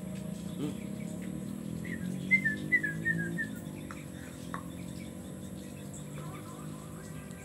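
A quick run of about six short high chirping notes, stepping downward, a couple of seconds in, over a steady low hum.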